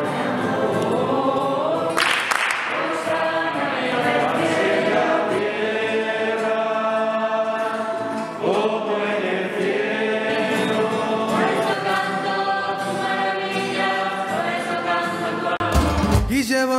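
Music: several voices singing together in long, held notes, choir-like. The music shifts to a lower part about a second before the end.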